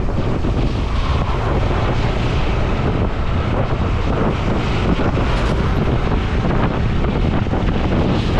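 Steady wind buffeting on the microphone of a riding motorcycle's GoPro, with the motorcycle's engine and road noise running beneath it.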